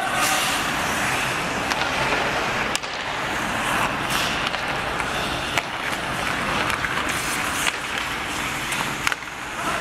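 Ice hockey in play: skates scraping and carving on the ice, with a number of sharp clacks of sticks and puck scattered through it.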